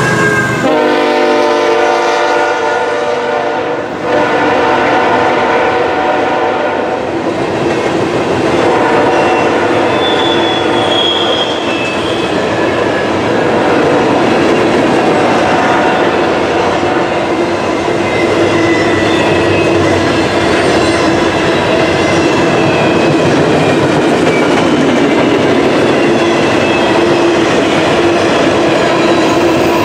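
CSX freight train passing close by: the locomotive horn sounds and cuts off about four seconds in. Then the empty intermodal well cars roll past with a steady rumble and wheel clatter on the rail joints.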